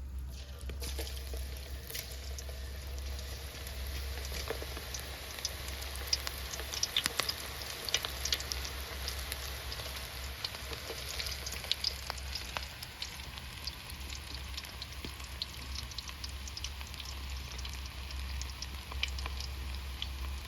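Food frying in hot oil, a steady sizzle with dense crackling pops that are busiest in the middle. A steady low hum runs underneath.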